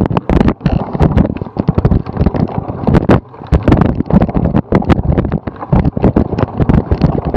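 Cyclocross bike ridden fast over bumpy grass: a dense, irregular clatter of knocks and rattles with wind buffeting the microphone.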